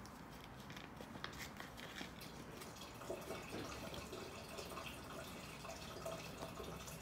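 Faint, scattered small clicks and ticks over a quiet background.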